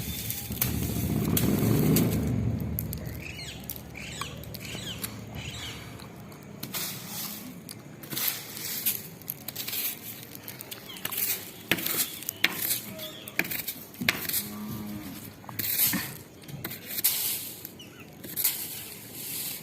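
A pet parrot with short chirps and squeaks among irregular clicks and taps, after a low rumble in the first couple of seconds.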